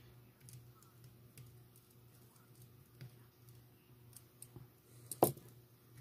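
Light plastic and metal clicks and taps from handling a Kato N scale D51 locomotive's chassis by hand, with one sharper click a little after five seconds in.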